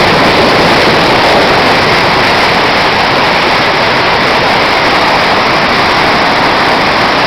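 Steady, loud noise of a storm, even and unbroken throughout.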